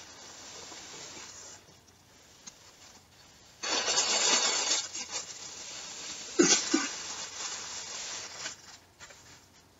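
Thin plastic bag rustling and crinkling as hands open it and pull a handbag out, with two loud bursts of crinkling about four seconds in and again about six and a half seconds in, then dying away near the end.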